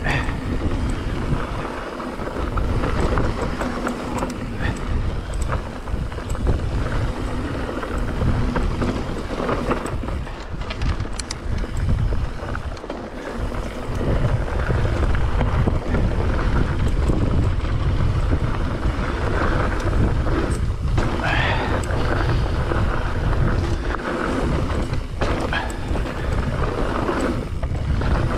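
Wind buffeting the action camera's microphone as a mountain bike rolls fast down dry dirt singletrack, with the rush of tyres on dirt and occasional knocks and rattles from the bike over rough ground. It gets louder about halfway through.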